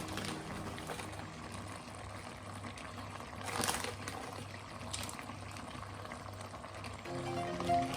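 Pasta in a lamb mince sauce bubbling and simmering in a pan over heat, with a short louder rustle about three and a half seconds in.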